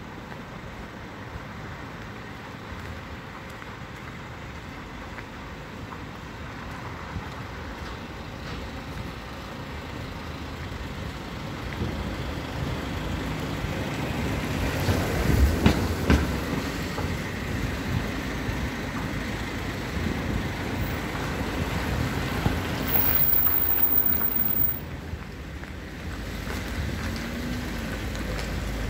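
Cars driving along a wet city street, with tyres hissing on the wet asphalt. The traffic noise swells about halfway through, is loudest in the second half, drops briefly a few seconds before the end, then rises again.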